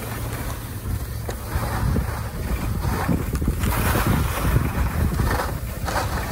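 Wind buffeting the microphone of a camera carried downhill on skis, a heavy rumble, with skis hissing and scraping over packed snow. The scraping surges about four seconds in and again near the end.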